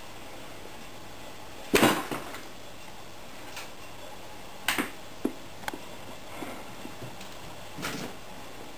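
Cat pawing and pushing in among shopping bags on a wooden floor, making short knocks and crinkles: the loudest about two seconds in, a quick cluster of three near the middle and one more near the end.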